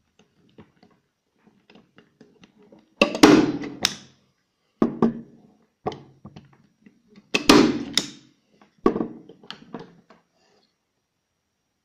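Powerfix Profi manual staple gun (hand tacker) firing twice, about four seconds apart. Each shot is a sharp clack with a brief metallic ring, followed by lighter clicks and knocks as the tool is handled. It is driving staples over a thin cable into a wooden board.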